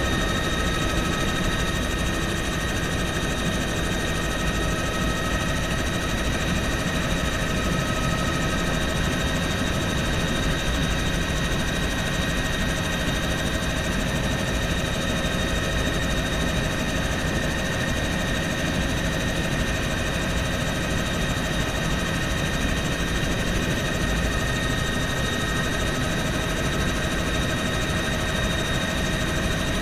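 Bell helicopter in flight, heard from inside its cabin: a steady low rotor and engine rumble with a constant high whine over it.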